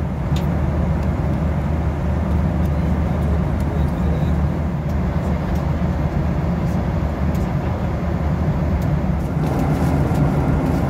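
Steady cabin noise inside a Boeing 737-800 airliner: the CFM56 engines and the airflow make a dense, even rumble, with a few faint ticks over it.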